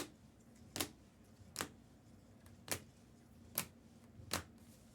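Computer mouse clicking: six sharp single clicks, a little under a second apart, to run a randomizer.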